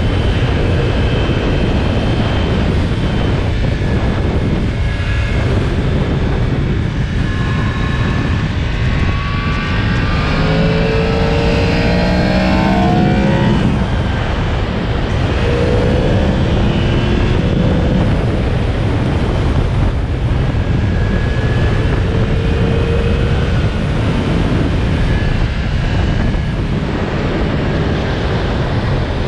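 Yamaha MT-10's crossplane inline-four on its stock exhaust while riding. The engine note climbs and falls with the throttle, rising most strongly about ten to thirteen seconds in and then dropping, over a steady low rush of wind on the microphone.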